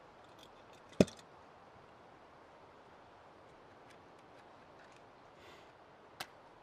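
A loud sharp click about a second in, with a few small ticks around it, then a short soft hiss and a second, quieter click near the end.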